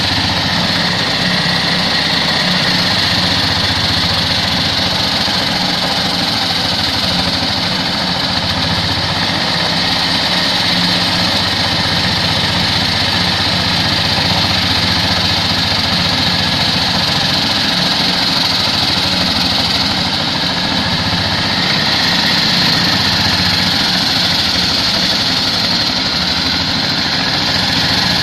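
Walk-behind concrete cutter running steadily: the low, even chug of its single-cylinder diesel engine under the continuous high grinding hiss of its blade cutting into wet concrete. The grinding gets a little louder about twenty-two seconds in.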